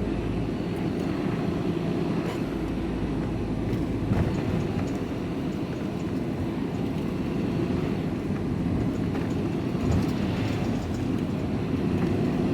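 Steady engine and road noise inside the cab of a moving vehicle, with a couple of faint knocks about four and ten seconds in.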